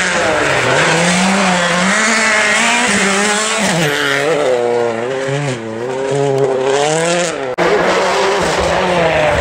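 Turbocharged World Rally Car engines revving hard through corners on a snowy tarmac stage, the engine note rising and falling again and again with throttle and gear changes. The sound breaks off for an instant about seven and a half seconds in, then another car's engine picks up.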